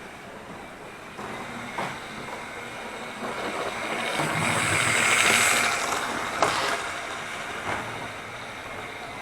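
OO gauge model train running on layout track, its motor and wheel noise swelling as it comes close and fading away again, with a few sharp clicks.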